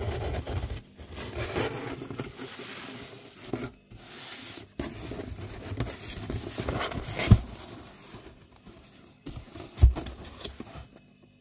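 Cardboard box flaps rustling and scraping as they are handled and lifted, with two sharp knocks, about seven and ten seconds in.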